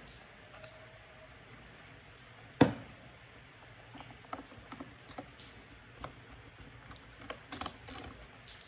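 Light clicks and taps of small tools and screws on a MacBook Pro's case during reassembly, with one sharp knock about two and a half seconds in and a quick run of clicks near the end.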